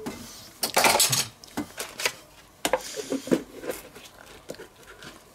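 Metal whisk and spoon clinking and knocking against a stainless steel mixing bowl, a quick run of ringing clinks about a second in, then scattered lighter taps. Near the end, softer handling as a plastic lid is pressed onto the bowl.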